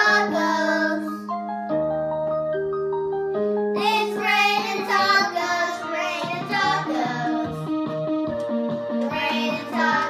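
Children singing a pop song over backing music with held keyboard-like chords. The voices drop out for about two seconds after the first line and come back in about four seconds in.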